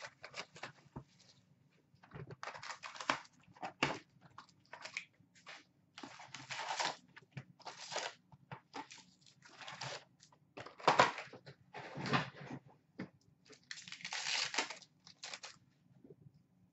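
Plastic shrink wrap torn and crinkled off a sealed cardboard box of trading cards, then the box and its packs handled: irregular bursts of tearing, crinkling and rustling with sharp clicks.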